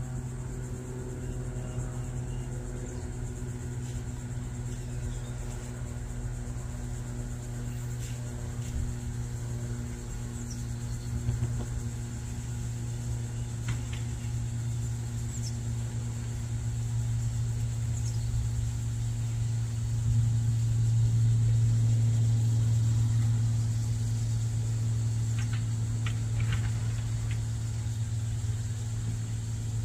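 Cessna 182R light aircraft flying overhead: the steady low drone of its six-cylinder piston engine and propeller, growing louder about two-thirds through and easing a little near the end.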